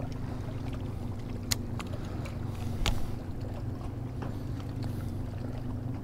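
A steady low motor hum, with two light clicks about one and a half and three seconds in.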